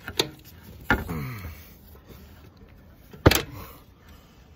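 Three sharp knocks, the second followed by a short falling tone, the loudest a little over three seconds in.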